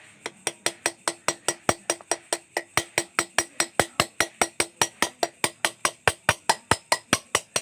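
Hammer tapping a thin, pointed steel chisel to engrave lines into a metal engine crankcase: a rapid, even run of sharp metallic taps, about five a second, each with a short ring.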